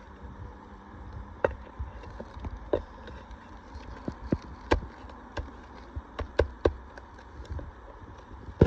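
Irregular sharp taps and clicks of a hand tool working under asphalt shingles to pull roofing nails, about a dozen over the few seconds, the loudest near the end.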